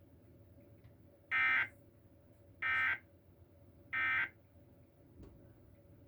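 Emergency Alert System end-of-message signal: three short bursts of raspy, buzzing digital data tones, evenly spaced about a second and a quarter apart. These close the Required Monthly Test.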